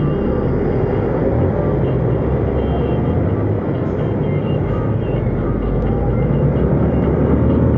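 Motorcycle riding through heavy road traffic: its engine runs steadily under a loud, even rumble of road and wind noise, mixed with the engines of trucks and cars close alongside.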